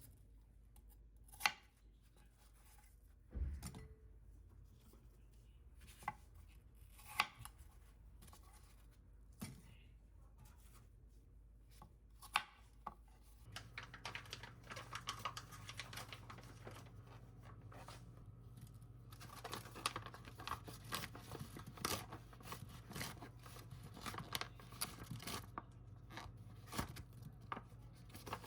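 Kitchen handling sounds: scattered sharp knocks and clicks, then, from about halfway, a busier run of quick small clicks and rustles over a low steady hum.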